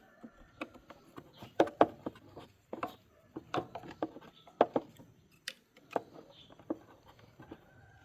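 Irregular sharp clicks and knocks, a dozen or more spread over several seconds, from small parts and hand tools being handled during repair work.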